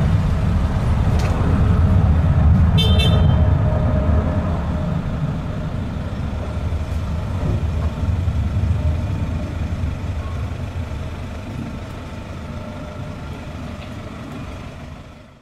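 Twin-engine jet airliner's engines giving a deep rumble as it climbs away after takeoff, the sound slowly fading. A brief high chirp about three seconds in.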